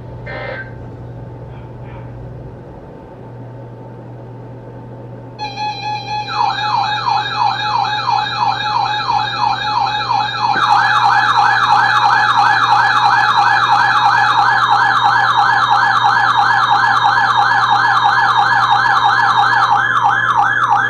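Electronic alert siren from a weather radio, sounding between two warnings: a fast, repeating rising sweep. It starts a few seconds in with a steady tone, grows louder about halfway through and cuts off suddenly near the end.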